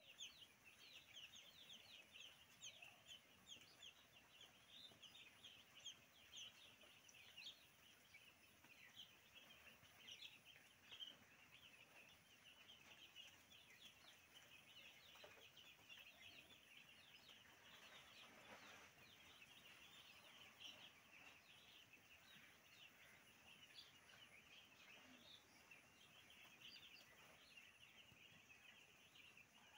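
A flock of young broiler chicks peeping without pause: many short, high peeps overlapping into one faint, continuous chorus.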